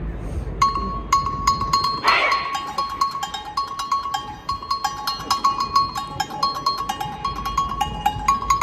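A high, bell-like percussion instrument of a school wind band struck in a quick, steady rhythm on two alternating pitches. The sharp strikes begin about half a second in, with a short rising-and-falling call heard once, about two seconds in.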